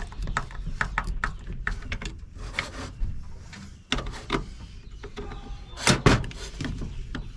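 Irregular metal clicks and knocks of a Baldwin mortise lock being handled and taken apart, with two louder knocks close together about six seconds in.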